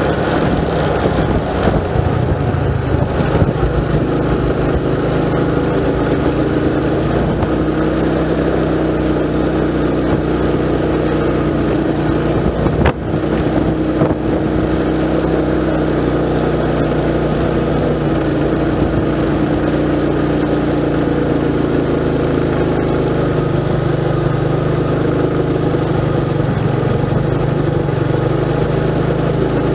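Motorcycle engine running steadily under way, its pitch shifting a little with speed, with two sharp knocks about halfway through.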